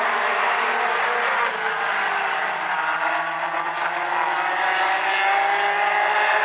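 Several mini stock race cars' four-cylinder engines running hard around the oval. The engine pitch sags about two seconds in, then climbs steadily toward the end as they accelerate.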